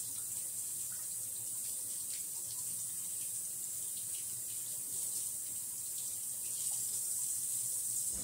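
Kitchen sink tap running in a steady stream while soapy hands are rinsed under it; the water is shut off suddenly at the end.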